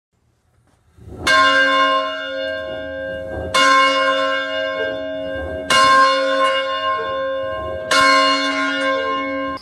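A church bell is struck four times, about two seconds apart, each stroke ringing on until the next.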